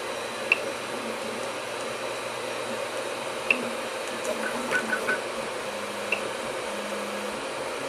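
3D printer running mid-print: a steady whir of its fans with stepper-motor tones that shift in pitch as it moves. Three short clicks come from the LCD controller's knob as it is pressed.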